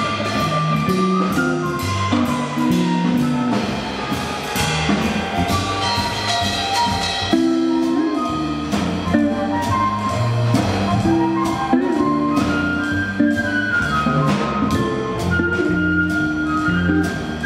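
Small jazz combo playing live: a moving bass line on bass guitar, an archtop jazz guitar, and a drum kit whose cymbal strokes keep steady time under a melody line.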